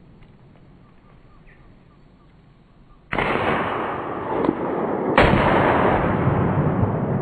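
Two revolver shots about two seconds apart, the first about three seconds in. Each starts suddenly and runs on into a long, loud rumble that fades only slowly, as in slowed-down slow-motion audio.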